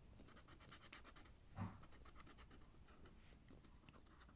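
Faint, quick back-and-forth colouring strokes scratching on the paper of a colouring book, fast and closely spaced for the first second or so, then sparser, with one short low sound about a second and a half in.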